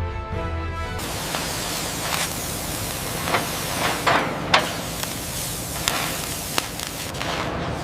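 Background music cuts off about a second in, giving way to a steady loud hiss, like a jet of spray or steam, broken by several sharp cracks.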